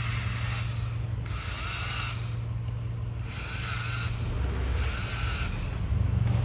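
Skoda Kodiaq 2.0 TSI four-cylinder petrol engine running steadily, with four short hissing bursts at regular intervals and the engine getting louder near the end.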